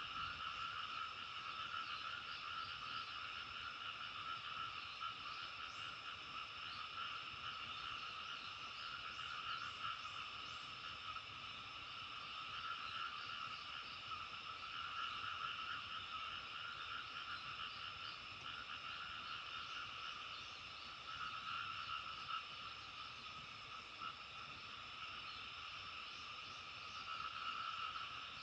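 A dense, steady chorus of many frogs calling at once, an unbroken trilling din.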